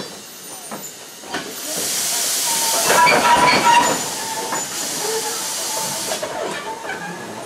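Steam locomotive letting off steam: a loud hiss starts about a second and a half in, peaks with a crackle in the middle and dies away after about four and a half seconds. A few clanks from the slow-moving freight wagons come before it.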